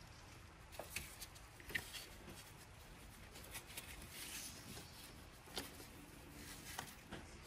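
Faint scattered light knocks and rubbing as a new multi-ribbed drive belt is worked by hand around the engine's pulleys.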